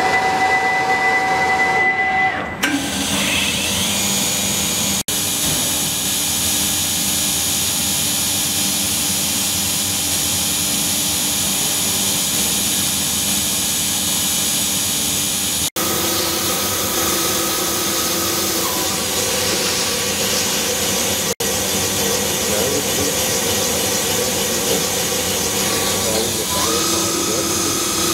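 Hauser S50L jig grinder's high-speed grinding spindle running: a steady hiss with thin, high whining tones over it.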